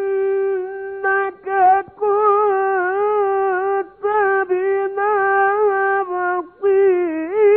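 A male Quran reciter chanting slowly and melodically in a high voice. He holds long notes with small wavering ornaments, in several phrases with short breaks between them.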